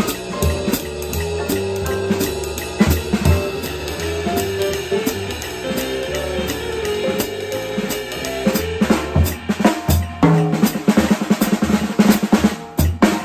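Acoustic drum kit played in swing time on the ride cymbal, over a recorded big-band backing track with a walking bass line. About nine seconds in, the playing turns into a busier run of strokes around the toms and snare.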